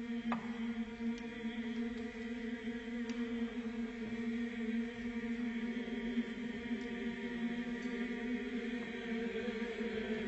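Choral music: massed voices holding a long, steady chord.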